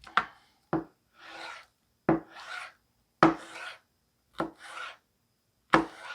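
Knife cutting an onion on a cutting board: six sharp knocks of the blade reaching the board, roughly a second apart, most followed by a short rasp as the blade is drawn through the onion.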